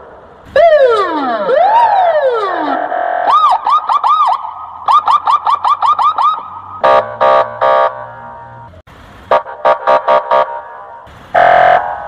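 Electronic police siren cycling through its tones: downward sweeping wails, then a fast rising-and-falling yelp about five times a second, then a run of short blaring blasts with gaps between them.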